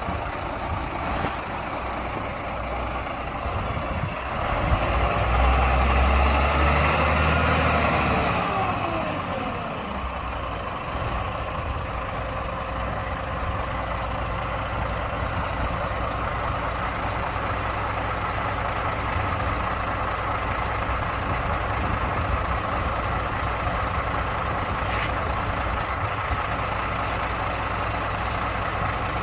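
Renault construction truck's diesel engine idling, revved up once about five seconds in and falling back to a steady idle, with a brief hiss near the end.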